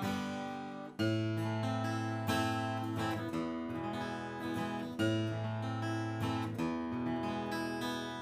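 Martin D-28 Authentic 1937 rosewood dreadnought acoustic guitar, freshly strung, played with a flatpick. Strummed chords are struck every second or two, with bass notes and short picked runs between them.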